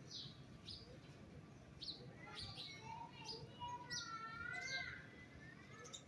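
Birds chirping: a string of short, sharp high chirps, with a wavering, warbling call running through the middle.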